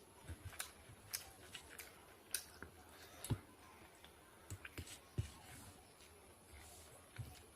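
Close-up eating sounds: wet mouth clicks and chewing in an irregular run of short clicks, with a few soft low thuds.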